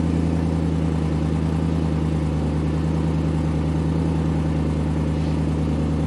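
BMW E92 M3's 4.0-litre V8 idling steadily, heard from inside the cabin. It runs smoothly, with the misfire cured by a new ignition coil.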